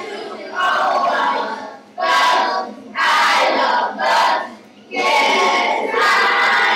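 Several voices together in about six loud bursts, each up to about a second long, like a group chanting or singing.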